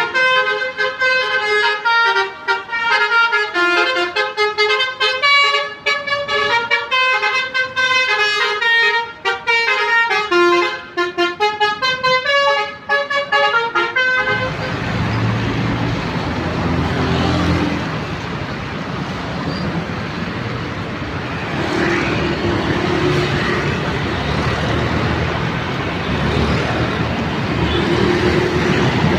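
A bus's telolet basuri musical horn playing a fast melody of stepped notes for about fourteen seconds, then cutting off abruptly. After that, a heavy vehicle's engine runs amid steady road noise.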